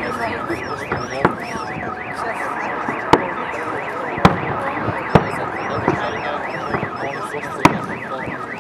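Fireworks shells bursting with sharp bangs, about five of them, over a car alarm wailing without a break in rapid up-and-down sweeps of pitch.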